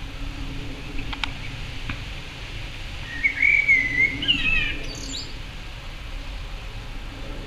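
Male Eurasian blackbird singing one song phrase: a warbled whistle, then higher squeaky twittering notes, about three seconds in. Two short clicks come about a second in, over a steady low background rumble.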